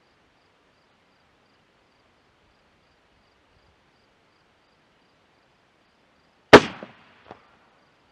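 A single .45-70 rifle shot: one loud, sharp report about six and a half seconds in, dying away quickly, followed under a second later by a much fainter second crack.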